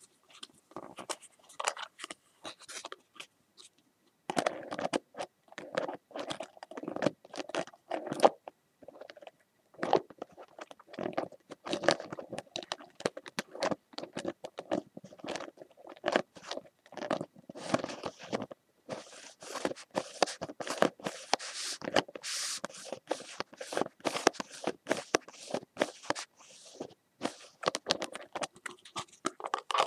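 Scratching and scraping made by hand for ASMR: many short, irregular strokes in clusters with brief pauses, turning brighter and hissier for a few seconds past the middle.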